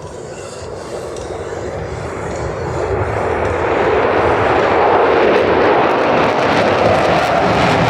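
Aircraft engine noise swelling steadily as an aircraft approaches, growing louder over about five seconds and then holding loud.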